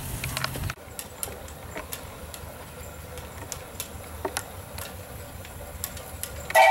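A 5/8-scale Wood Brothers 22/70 steam traction engine under steam, with scattered light ticks and clicks over a low steady hum. Near the end its steam whistle blows loudly.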